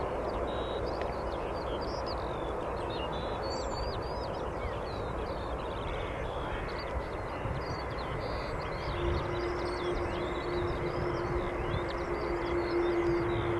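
Steady rumbling jet engine noise of an airliner at the airport, with a steady hum joining about nine seconds in. Birds chirp throughout.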